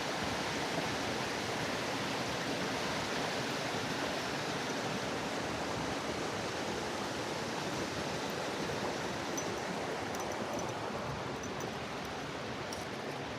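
Mountain stream rushing over rocks: a steady, even wash of water noise, with a few faint high ticks in the second half.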